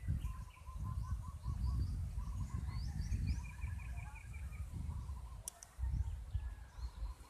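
Several small birds calling in the background with quick trills and short rising chirps, over a louder, uneven low rumble on the microphone. A single sharp click about five and a half seconds in.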